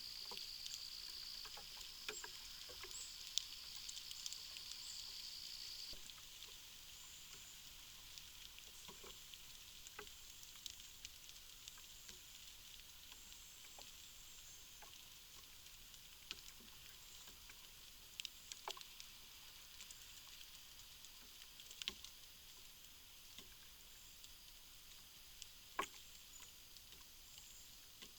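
Faint, steady high-pitched insect trilling; one trill cuts off about six seconds in, leaving a softer high chorus. Scattered soft ticks and clicks sound throughout, the sharpest near the middle and near the end.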